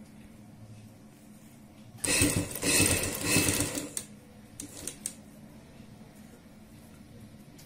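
Sewing machine running in a short burst of about two seconds, stitching potli buttons onto a fabric strip, followed by a few light clicks.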